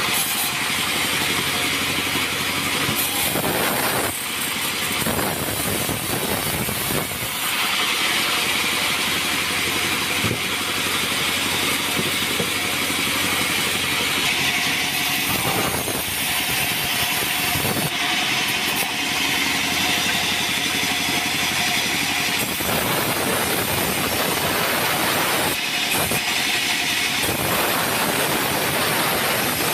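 Bandsaw mill running, its blade cutting through a block of acacia wood; the rasping cut swells and eases several times as the block is fed through and repositioned, over a steady machine hum.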